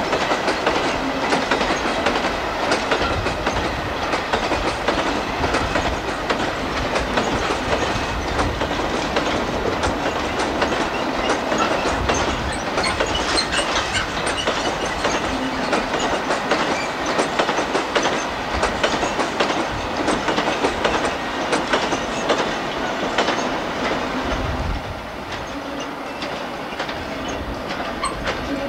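Rake of HAA merry-go-round coal hopper wagons rolling past, wheels clattering over rail joints. The sound drops off about 25 seconds in as the tail of the train moves away.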